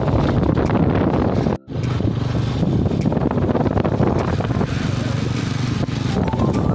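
Engine and wind noise of a moving vehicle heard from a passenger's seat, a steady low rumble. The sound cuts out briefly about a second and a half in.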